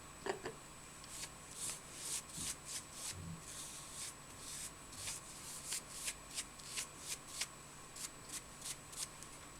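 Paintbrush scrubbing and dabbing white primer paint onto glued tights fabric covering a bottle: a run of short dry swishes, about two to three a second.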